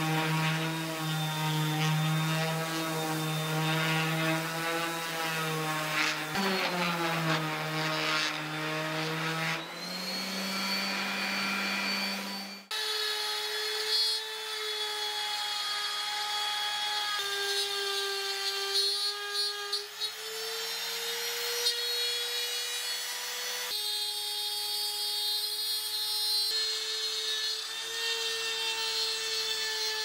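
A random orbital sander runs steadily on a slatted wood panel. About twelve seconds in, a Makita trim router takes over with a higher steady whine as it cuts a circular groove in a chipboard board. The router's pitch jumps abruptly a few times.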